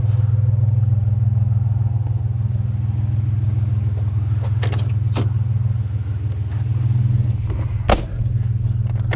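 Truck engine running with a steady low drone, with a few short knocks or clicks in the second half.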